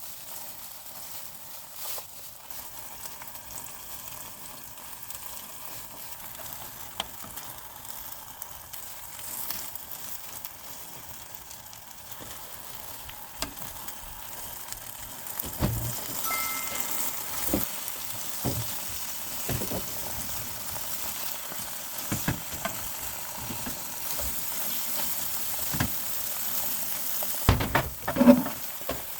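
Food sizzling in a frying pan while being stirred, with occasional knocks of a utensil against the pan; the sizzle gets louder about halfway through, and a cluster of louder knocks comes near the end.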